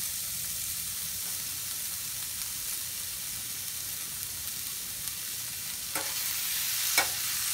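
Boiled green banana cubes sizzling in oil in a stainless steel frying pan with onions, a steady hiss. Near the end, a metal spoon clicks against the pan twice as stirring begins.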